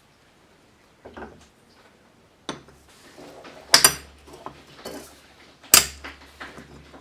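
Metal parts being handled, with small knocks and clicks and three sharp metallic clanks about two and a half, four and six seconds in. The last clank is the loudest.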